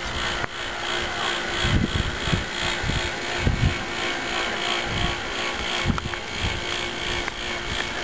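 GoldStar window air conditioner with a noisy compressor running: a steady mechanical drone with a faint hum, carrying across the street. Footsteps thud softly on the asphalt.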